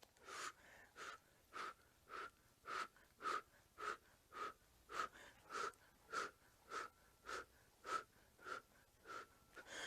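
Faint, short breaths in a steady rhythm of about two a second, each with a slight whistle. They come in time with repeated bicep curls on resistance tubing.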